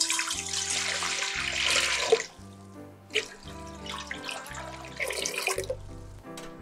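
Water poured from a glass jug into an empty stainless-steel stockpot, splashing loudly for about two seconds and then more lightly, over background music.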